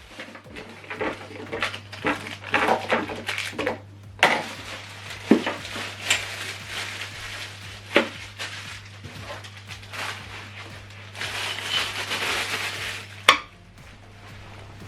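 Soundbar accessories and their packaging being handled and set down: irregular knocks, clatter and rustling, with a longer rustle about eleven seconds in and a sharp knock just after. A steady low hum runs underneath.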